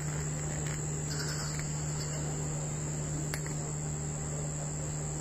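Night insects, crickets, trilling in one continuous high-pitched drone over a steady low hum.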